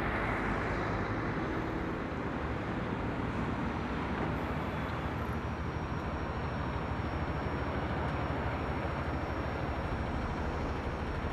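Lorry traffic: heavy diesel trucks driving past and round a roundabout, a steady even mix of engine and tyre noise.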